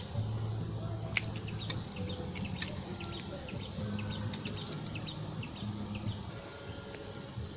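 Insects and birds chirping in a high, buzzy trill that swells about four to five seconds in. A few sharp clicks come in the first half.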